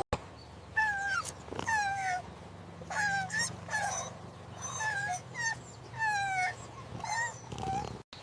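Kitten mewing: about a dozen short, high cries, each falling in pitch, in quick succession.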